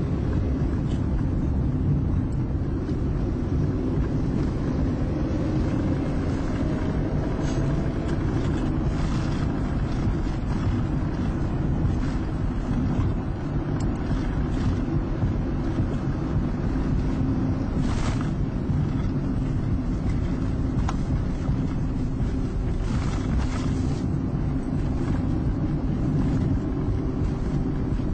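Car engine and road noise heard inside the cabin while driving: a steady low rumble, with the engine note rising slightly a few seconds in.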